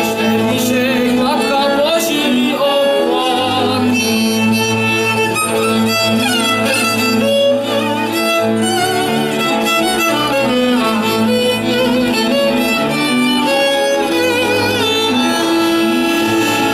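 Moravian folk band playing an instrumental passage: two fiddles and a clarinet over a double bass, continuous and without singing.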